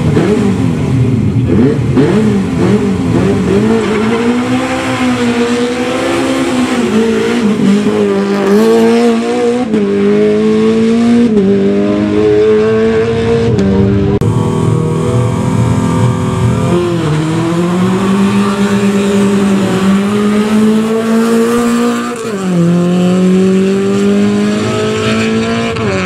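Rally car engine revving hard, accelerating through the gears: its pitch climbs and then drops back at each of several upshifts.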